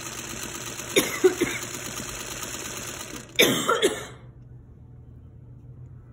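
A woman coughing hard in two fits, about a second in and again past three seconds, from choking on a bite of salad. Under it a vintage black Singer sewing machine runs steadily and stops about four seconds in.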